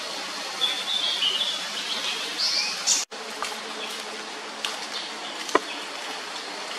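Forest ambience: a bird gives a few short high chirps in the first half. After a brief dropout about three seconds in, a steady insect buzz takes over, with a few faint clicks.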